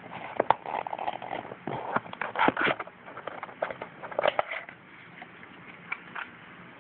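Irregular clicks, taps and rustling of hands handling the speaker and its packaging, stopping about five seconds in and leaving a faint hiss.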